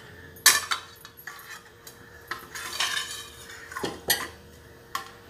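Steel spoon clinking and scraping against a glass bowl and a small steel bowl while spooning out mango pickle: a handful of sharp clinks, the loudest about half a second in, with a short scrape near the middle.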